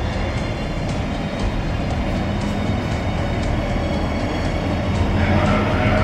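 Alishan Forest Railway passenger train rolling slowly past the platform: a steady rumble with faint regular clicks from the wheels, growing louder about five seconds in as a pitched tone joins it.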